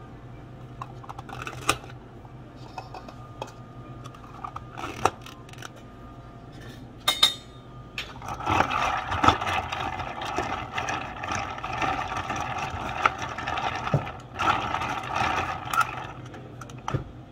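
Clear plastic dome lids being fitted and pressed onto plastic iced-drink cups: scattered clicks, then denser plastic rustling and crackling in the second half. A steady low hum runs underneath.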